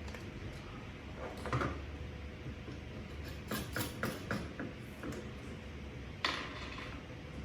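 Scattered clicks and light knocks from small objects being handled, with a quick run of several clicks around the middle and a sharper knock near the end, over a low steady hum.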